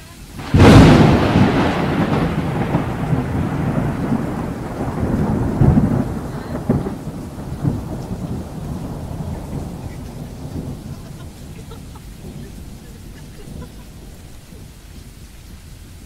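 Close thunderclap: a sudden loud crack about half a second in, then a rolling rumble with a couple of renewed peaks that fades away over about ten seconds. Rain keeps up underneath, heard from inside a car.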